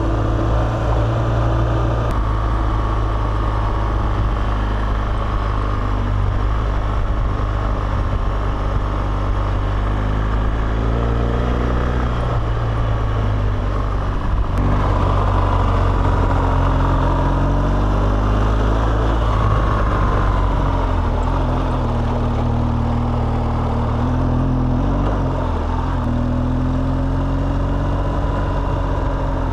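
BMW GS Adventure motorcycle engine running while riding, its pitch rising and falling gently with the throttle over a steady low rumble.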